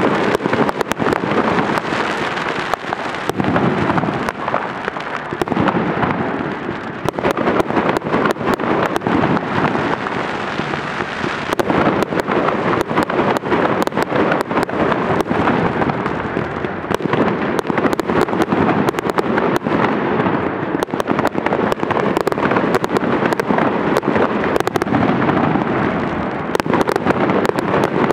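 Aerial fireworks display: a dense, continuous barrage of bangs and crackling, with many bursts overlapping and no pause.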